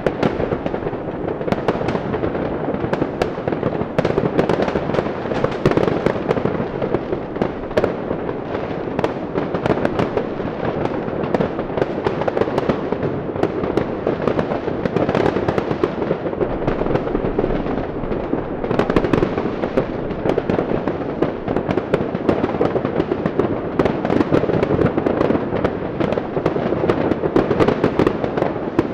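Fireworks and firecrackers going off nonstop in a dense barrage: countless overlapping bangs and crackles with no pause.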